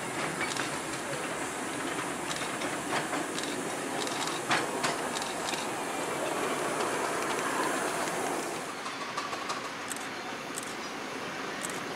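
A miniature steam locomotive and its passenger cars rolling past, the wheels clicking over the rail joints against a steady hiss. About nine seconds in the sound drops to a quieter run of evenly spaced clicks, roughly one every half second or so.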